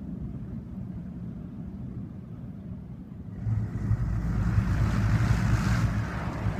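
Mark VII ChoiceWash XT soft-touch car wash heard from inside the car: water spraying on the windshield over a steady low hum. About three and a half seconds in it grows louder, with a rushing, slapping noise as the spinning cloth brush sweeps across the front of the car and the windshield.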